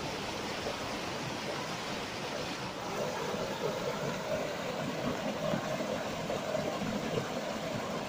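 Mountain stream running over rocks, with a small cascade splashing into a pool: a steady rush of water that shifts slightly in tone about three seconds in.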